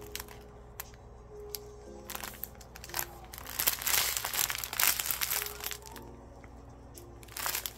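Clear plastic bags of diamond-painting drills crinkling as they are handled, loudest in the middle and again near the end. Quiet background music with held notes runs underneath.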